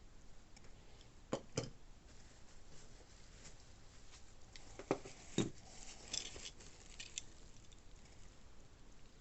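Small objects being handled during an unboxing: two pairs of sharp taps or knocks, the first about a second and a half in and the second about five seconds in, with light clicks and a brief rustle between.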